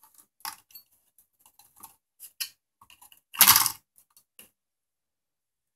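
Light clicks and taps of a circuit board and its wiring being handled and set back onto a TV's sheet-metal chassis, with one louder clatter about three and a half seconds in.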